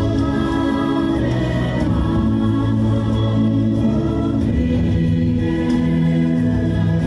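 A choir singing long held notes in several parts over an instrumental accompaniment, the chords changing every second or so.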